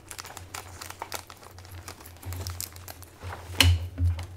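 Crinkling and rustling of plastic packaging and paper as kit pieces and an instruction booklet are handled, with scattered light clicks and a sharper knock about three and a half seconds in.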